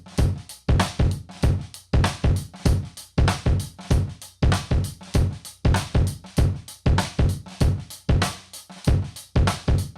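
Drum kit playing a steady groove of bass drum, snare and cymbals, with the bass drum's sound triggered from a Roland TM-1 trigger module.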